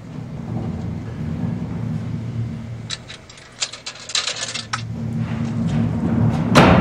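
Low steady drone. In the middle a rapid run of sharp crackling clicks cuts in for about two seconds, and a single loud hit comes near the end.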